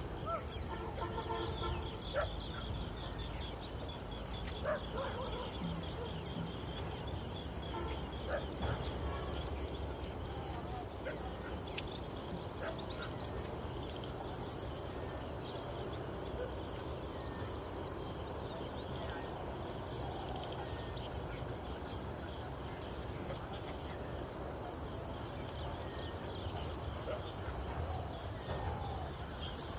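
Outdoor nature ambience: insects calling in repeated short bursts over a steady hiss, with scattered bird calls and a single sharp click about seven seconds in.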